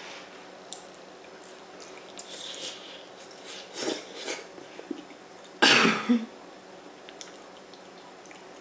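A woman coughing once, loudly, a little past halfway, with softer throat-clearing noises before it. The spicy seafood-boil sauce is catching the back of her throat.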